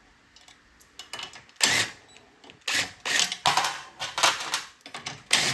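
Small metal engine parts and tools clinking and clattering as they are handled, in a string of short rattling bursts starting about a second in.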